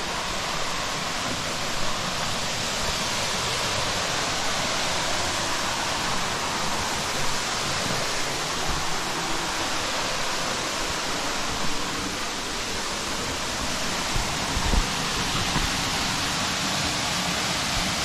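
Waterfall and creek rushing, a loud steady roar of falling water, with a few dull thumps along the way.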